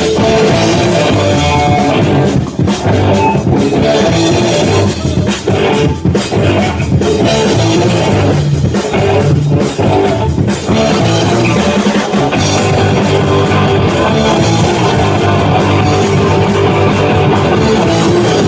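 Punk rock band playing live: distorted electric guitars, bass guitar and drum kit, with a few short breaks in the riff in the first ten seconds.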